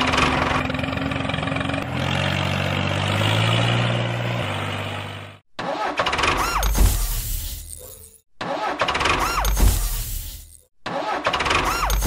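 Vehicle engine sound effect: a steady engine drone for about five seconds, then a short engine clip repeated three times, each cut off abruptly by a moment of silence.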